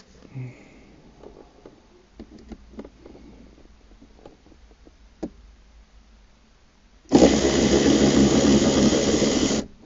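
A few light clicks of a socket and tool being handled, then a cordless power driver with an 8 mm socket runs at a steady speed for about two and a half seconds and stops abruptly, backing a bolt out of the shifter mount.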